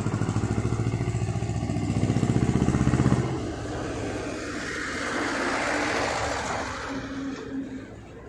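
A motor vehicle engine running with a pulsing note that grows louder, then stops abruptly about three seconds in, followed by a broad swell of traffic-like noise that rises and fades away.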